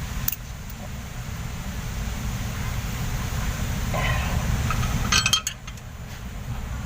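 Sharp metal clinks from hand tools on the rocker arm of an Isuzu 12PE diesel engine as a loose valve clearance is adjusted, once near the start and in a short cluster about five seconds in. A steady low rumble runs underneath.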